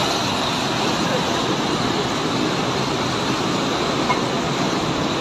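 Muddy floodwater of a river in flash flood rushing and churning, a steady, unbroken rushing roar of water.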